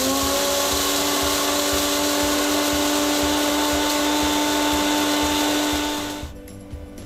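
Bullet-style personal blender's motor grinding dry sago pearls (sabudana) to flour, running with a steady high whine and a hiss of grinding. It winds down and stops about six seconds in.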